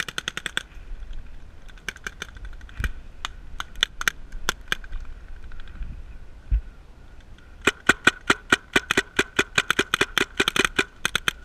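Paintball markers firing: a quick burst of shots at the start, scattered single shots through the middle, then a long rapid string from about seven and a half seconds in, around seven shots a second.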